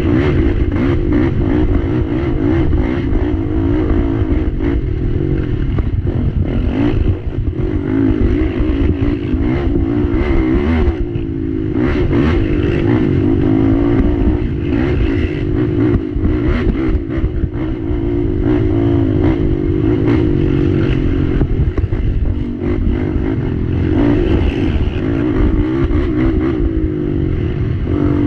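Race ATV's engine running hard on a cross-country trail lap, the revs climbing and falling as the rider works the throttle, with several brief drops where the throttle is let off.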